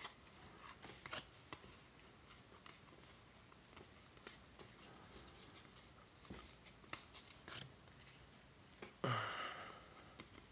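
Baseball trading cards flipped through by hand: faint, irregular light clicks and flicks as card edges snap past one another, with soft sliding in between.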